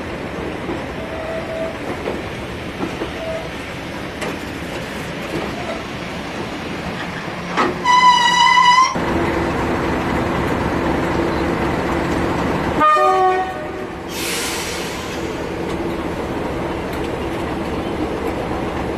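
Railway coaches rolling past with light clicks from the rails. About eight seconds in a locomotive horn sounds one steady note for about a second. A shorter, lower horn note follows some five seconds later, then a brief hiss of air, while a diesel engine runs steadily underneath.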